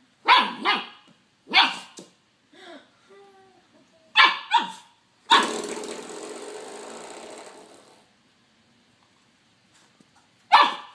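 Puppy barking in short bursts: a quick pair near the start, one more, another pair around four seconds in, and one near the end. About five seconds in, a coiled-spring door stop the puppy is pawing at twangs with a buzzing boing that fades out over about two and a half seconds.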